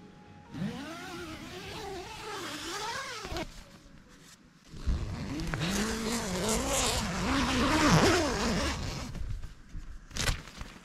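Road traffic: two motor vehicles go past close by one after the other, each a rushing pass with an engine note that rises and falls. A single sharp knock near the end.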